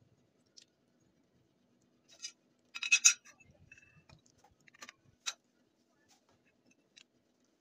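Short metallic clinks and scrapes of steel rebar being handled and set down on concrete and on a steel bar, with a quick cluster of clinks about three seconds in and a few single clicks after.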